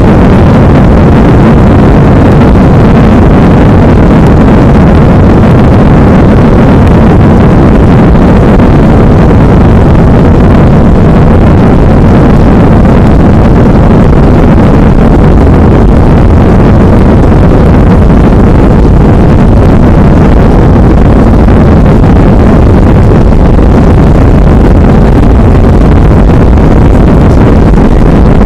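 Airbus A318 jet engines and airflow heard from inside the passenger cabin as a steady, dense rumble, harshly distorted and clipped by an overdriven microphone.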